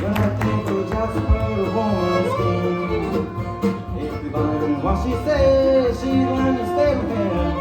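Acoustic bluegrass band playing a blues number.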